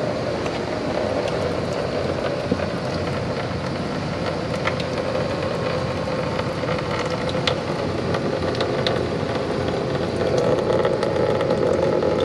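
Engine coolant pouring from an opened radiator drain petcock into a plastic drain pan: a steady rush of splashing liquid, with a few light clicks.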